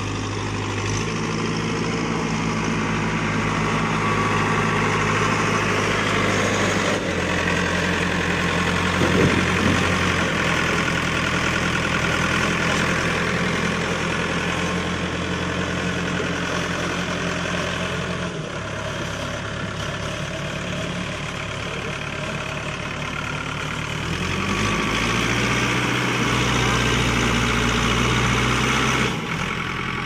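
Old JCB backhoe loader's diesel engine running while the loader bucket scoops and lifts sand. The engine speed steps up and down several times as the load changes.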